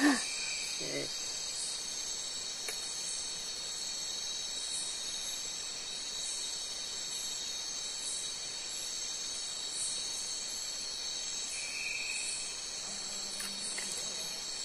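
Steady chorus of night insects: several high tones held on together, with a higher pulse repeating roughly every two-thirds of a second.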